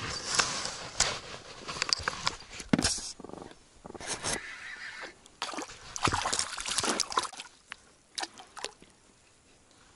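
Clothing rustling and scraping against the camera microphone in irregular bursts with a few sharp clicks, along with some water sloshing against the inflatable boat.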